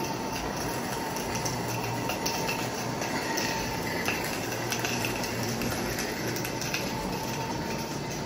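Large-scale live-steam model train of Shay locomotives and freight cars rolling past on the layout: a steady hiss with light, scattered metallic clicks from the wheels on the track.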